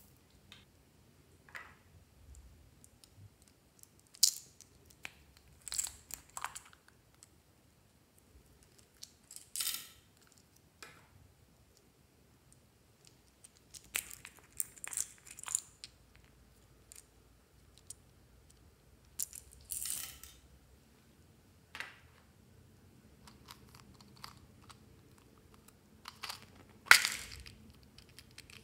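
Intermittent small handling sounds of plastic bead cases and beads: short clicks, rattles and crinkles with quiet between. The loudest is a sharp plastic click near the end, as a case of silver filigree beads is snapped open.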